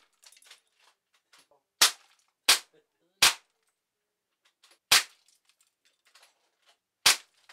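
Five sharp shots from Hammerli 850 AirMagnum CO2 air rifles, in an irregular string (three in quick succession, then two more spaced out), with faint small ticks and rattles between the shots.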